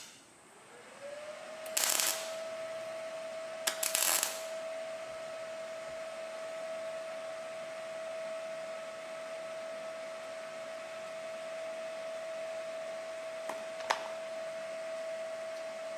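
Two short hissing bursts of welding on the lever, about two and four seconds in, over a steady motor whine that rises in pitch during the first second and then holds. A sharp metallic click comes near the end.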